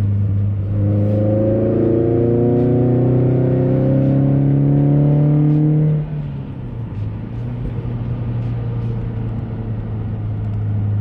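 Car engine heard from inside the cabin, speeding up with a slowly rising pitch for about five seconds. The pitch then cuts off sharply as the engine eases off, leaving a steady low hum.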